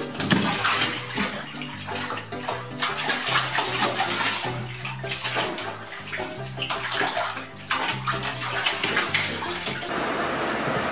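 A cat splashing and thrashing in a bathtub full of water after jumping in, over background music. Near the end the splashing gives way to a steady hiss.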